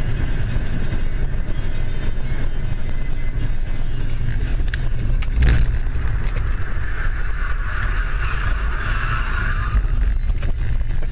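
Road and engine noise of a moving car as heard by its dashcam, with one sharp knock about five and a half seconds in and a harsher, higher hiss from about seven to ten seconds in.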